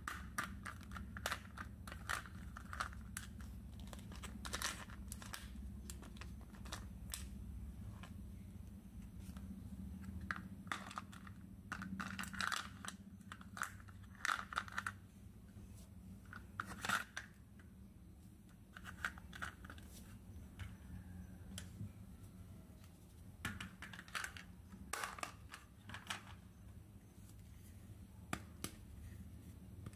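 Toy packaging being unboxed by hand: plastic crinkling and tearing, with scattered small clicks and taps at irregular intervals over a low steady hum.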